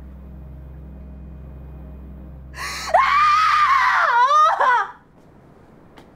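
A low, dark drone, then a loud, high anguished human scream starting between two and three seconds in. The scream wavers and breaks near its end and stops about two seconds later.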